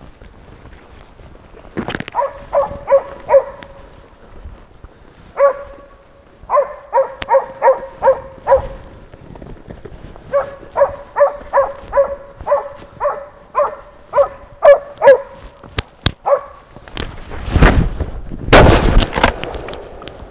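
East Siberian Laika baying a wounded wild boar, in quick runs of sharp barks about three a second. Near the end come two loud bangs about a second apart, rifle shots at the bayed boar.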